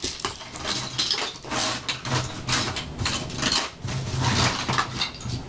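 Hands rummaging in a wicker basket, things rustling and clattering as they are pulled out and dropped on the floor to empty it.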